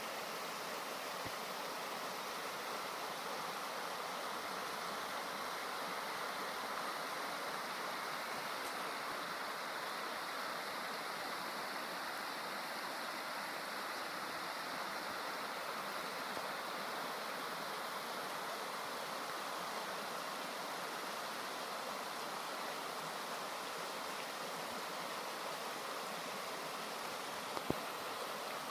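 Small creek rushing steadily over rocks and little cascades, a constant even rush of water; one brief click near the end.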